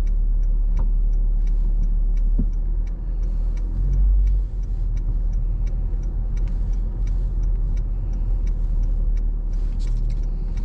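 Car cabin rumble from engine and road, with a turn-signal indicator ticking evenly about three times a second. The low rumble swells briefly about four seconds in.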